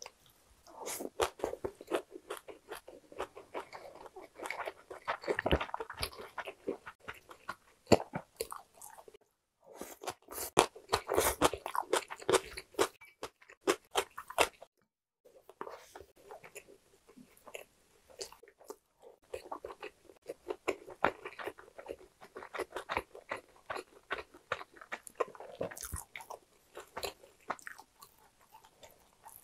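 Close-miked chewing of mouthfuls of rice and side dishes, beginning with rice wrapped in a seasoned perilla leaf: wet smacking mouth sounds with many small crunches. It comes in four bouts, with short silent pauses between mouthfuls.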